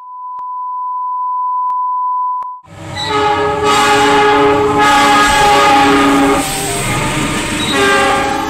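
A steady 1 kHz test-card beep that cuts off after about two and a half seconds. Then a KAI diesel locomotive passes close, its horn sounding loudly in several notes at once over the rumble of the train.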